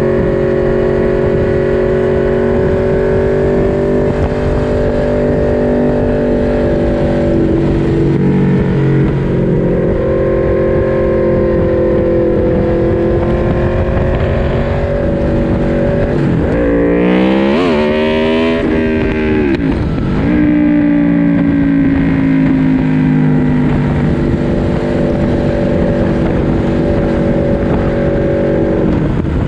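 Four-cylinder naked sport-bike engine heard onboard, held at high revs for long stretches. About seventeen seconds in there is a quick run of gear changes, with the pitch sliding and stepping, before it settles back to a steady high-rev pull.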